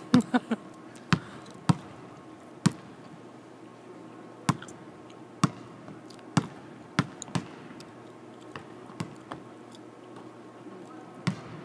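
Basketballs bouncing on a hardwood court in a large empty arena: sharp, irregular thumps, a quick run of dribbles at the start, then single bounces every second or so.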